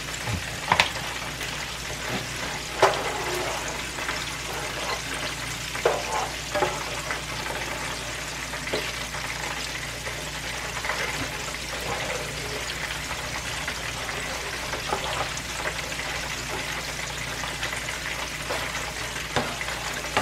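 Chicken wings frying in a pan of oil, a steady sizzle, with a spoon stirring a pan of thick cream sauce and now and then clicking against the pan.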